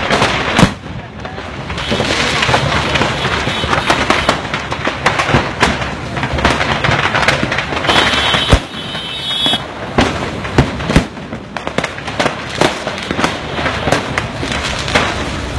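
Firecrackers going off en masse in a burning truckload of fireworks: a dense, continuous crackling with louder bangs scattered through it, the sharpest about half a second in and another around the middle. A high whistle sounds for about a second and a half near the middle.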